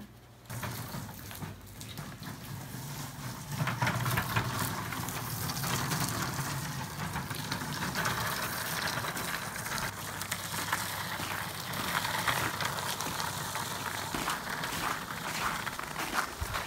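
Harp cases on wheeled carts rolling over snowy, gritty pavement, with footsteps in snow: a steady crunching rumble that starts about half a second in.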